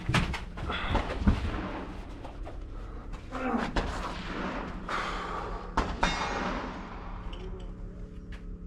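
A few sharp gunshot cracks with a short echo, the loudest about a second in and another about six seconds in, with rustling and handling noise between them.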